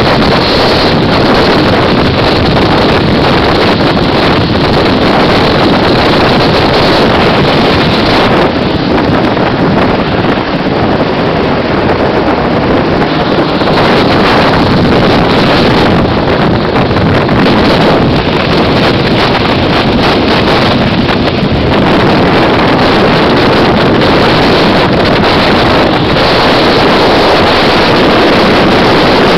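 Rotor wash from a hovering helicopter buffeting the microphone: a loud, steady rush of wind noise with the helicopter's engine and rotor noise underneath.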